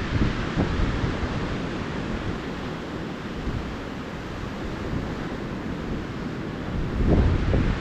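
Ocean surf washing steadily onto the beach, with wind rumbling on the microphone in gusts, strongest at the start and again about seven seconds in.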